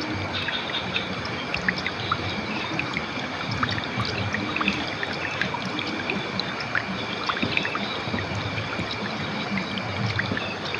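River water flowing steadily, a continuous trickling rush dotted with many small splashes.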